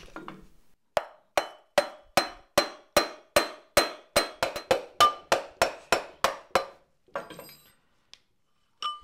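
Procunier 3E tapping head's clutch mechanism being turned by hand, giving an even run of sharp metallic clicks, about two to three a second, each ringing briefly in the steel housing. The clicking stops about two-thirds of the way through, followed by a short rattle.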